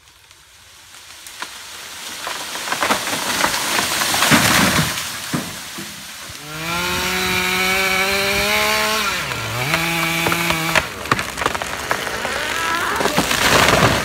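A chainsaw running at a steady high pitch for about four seconds, dropping briefly and picking up again. Before and after it, two swells of cracking and crashing wood and branches as a tree comes down.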